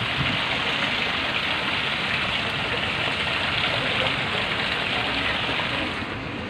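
Water splashing steadily down an artificial rock-grotto fountain into its shallow pool, getting quieter near the end.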